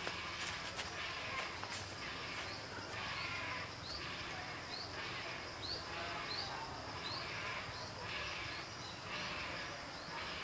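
Outdoor ambience with a rhythmic animal call: a hissing pulse ending in a short rising chirp, repeating a little more than once a second.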